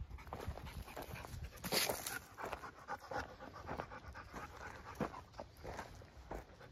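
Dog panting, with footsteps crunching over dry ground and dead leaves.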